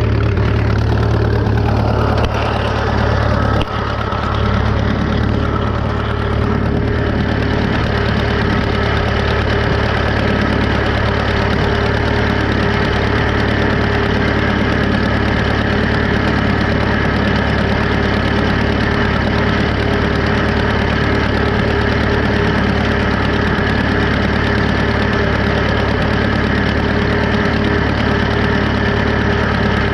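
Farmall F-20 tractor's four-cylinder engine running steadily at working speed while pulling a hay rake, with a brief dip and a single knock about three and a half seconds in.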